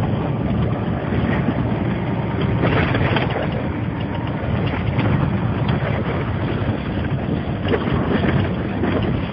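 Inside a vehicle's cabin while driving on an unpaved dirt road: steady engine and road rumble, with scattered knocks from the rough surface.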